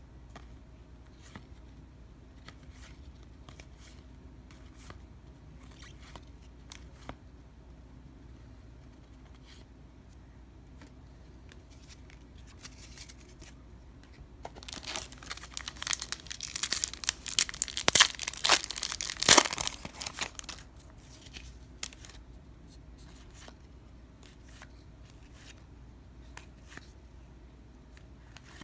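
A baseball card pack wrapper being torn open and crinkled: a loud burst of tearing and crinkling lasting about six seconds around the middle. Faint scattered clicks come before and after it.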